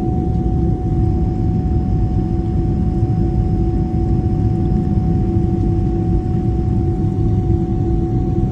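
Cabin noise of a Boeing 777-300ER climbing out just after takeoff, heard inside the cabin: its GE90 engines give a steady loud rumble with a steady whine held through it.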